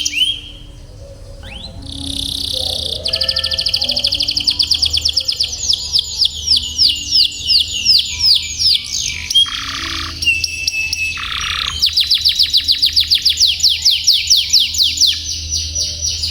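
Domestic canary singing long rolling trills: fast runs of repeated notes, some falling in pitch, broken by a brief pause about a second in and a short buzzy phrase around ten seconds in.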